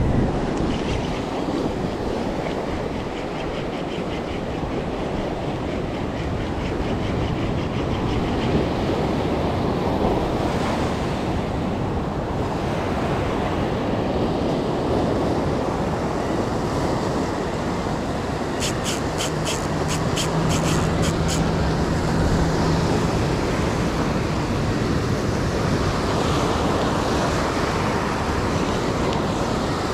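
Ocean surf breaking and washing over a rocky, pebbly shore, a steady rushing sound. About two-thirds of the way in there is a brief, rapid run of ticks.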